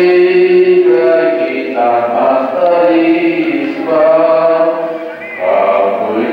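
Voices singing a slow hymn at Mass, each note held for about a second, with a brief pause between phrases about five seconds in.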